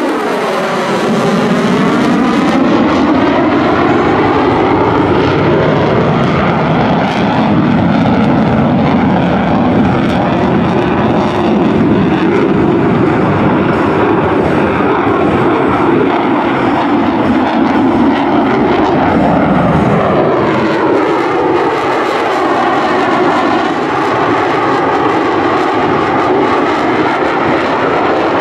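Loud, continuous jet noise from a Lockheed Martin F-35A's single Pratt & Whitney F135 afterburning turbofan as the fighter maneuvers overhead. A sweeping, swirling tone falls right at the start and shifts again about twenty seconds in, as the jet's distance and angle change.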